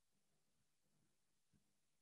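Near silence: a faint, even background hiss in a pause between spoken words.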